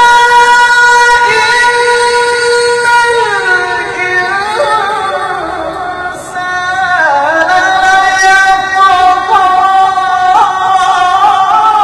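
A man's voice reciting the Qur'an in melodic tilawah style into a microphone. He holds one high note for about three seconds, glides down and fades, then about seven seconds in starts a new phrase with wavering ornaments.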